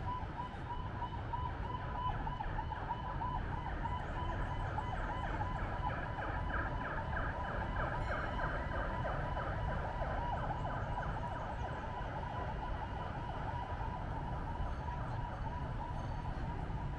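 City street noise with a low traffic rumble and a steady high-pitched, siren-like electronic tone. For several seconds in the first half the tone pulses rapidly and evenly.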